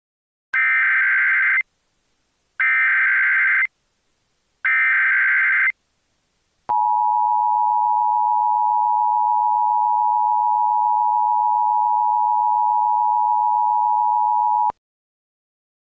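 Emergency Alert System signal: three buzzy, warbling data bursts of about a second each, with short gaps, then the steady two-tone attention signal held for about eight seconds before it cuts off.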